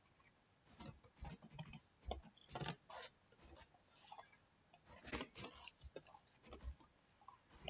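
Faint computer keyboard typing: irregular keystroke clicks as code is entered.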